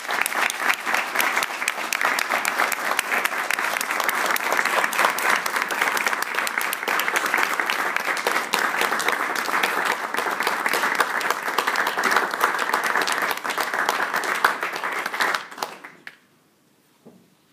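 Audience of a few dozen people applauding, a steady dense clapping that stops fairly abruptly about fifteen and a half seconds in.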